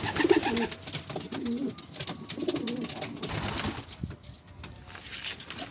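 Domestic pigeons cooing, several low coos in the first three seconds, over a quick patter of clicks as they peck grain from the feeding troughs.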